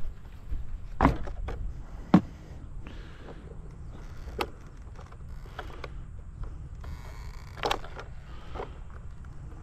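A few sharp knocks and clicks from handling a stopped RC monster truck on a ramp, the loudest about two seconds in, over a steady low rumble on an outdoor microphone.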